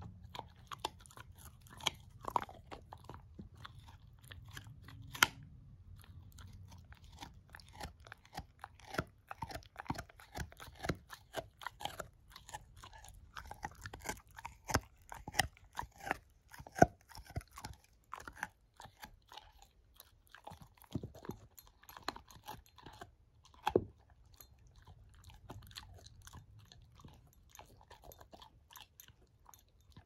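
A shepherd-mix puppy chewing a bone: irregular sharp crunches and gnawing clicks, coming thickest in the middle and thinning out over the last several seconds.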